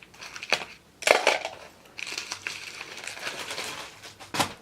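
Packaging being handled: sharp crinkling rustles about half a second and a second in, a stretch of steady rustling through the middle, and another sharp crinkle near the end.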